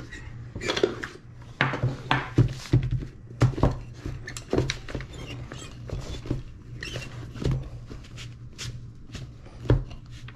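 Handling noises from a leather Red Wing Blacksmith boot with a wooden shoe tree inside, being turned, pressed and set down on brown paper: an irregular run of light knocks, taps and paper rustles, loudest a few seconds in and again near the end. A steady low hum runs underneath.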